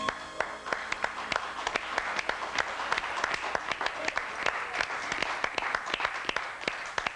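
Studio audience applauding, a dense run of hand claps with single sharp claps standing out.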